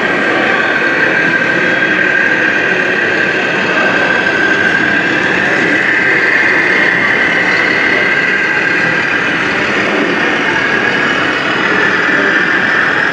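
Radio-controlled model trucks running, a steady electric-motor and gearbox whine that drifts slightly up and down in pitch over a rough mechanical rattle.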